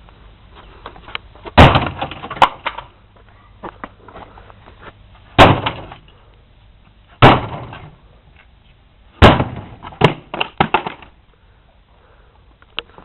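Sledgehammer blows smashing a television: five heavy strikes a second or two apart, with glass breaking, followed by a few smaller knocks after the last blow.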